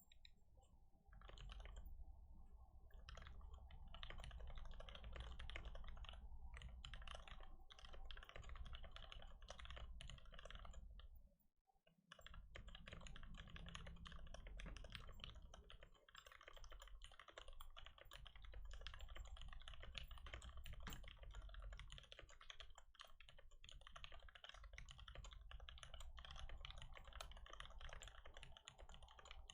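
Quiet, continuous fast typing on a computer keyboard: a dense run of key clicks that stops briefly about eleven and a half seconds in, then carries on.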